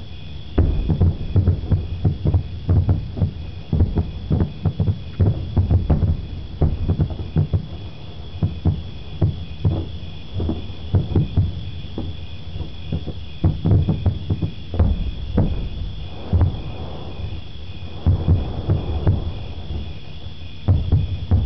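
Distant fireworks going off in a rapid barrage: many deep, muffled booms a second, irregular and overlapping, with a steady high tone underneath.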